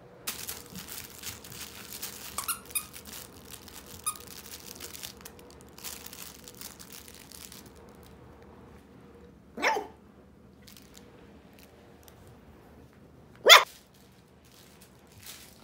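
Miniature poodle puppies at play: several seconds of rustling and scuffling, then two short sharp puppy barks about four seconds apart, the second the loudest.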